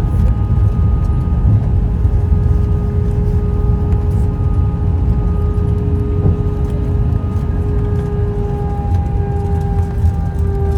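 Cabin noise of an Airbus A320-200: a heavy low rumble with the steady whine of its IAE V2500 engines, the tones dipping slightly in pitch near the end.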